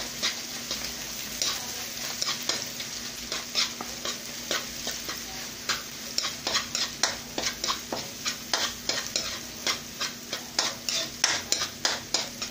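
Egg and diced red onion sizzling in a nonstick wok while a spatula stirs and scrapes against the pan in short repeated strokes. The strokes come about three a second in the second half.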